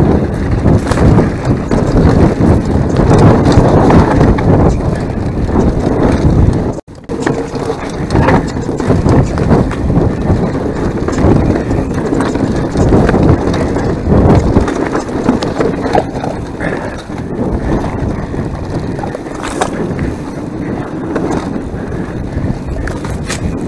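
Mountain bike descending a rough enduro trail: tyres crunching over rocks and roots, the bike's frame and parts rattling and knocking, with wind buffeting a bare chest-mounted action camera's microphone. The sound cuts out for an instant about seven seconds in.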